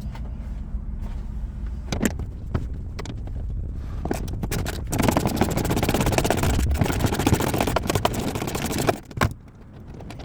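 Metal scraping and rapid clicking as a car's seat-belt anchor bolt is worked loose without a wrench, loudest for about four seconds in the second half and stopping suddenly near the end. A few sharp clicks come earlier over a steady low hum.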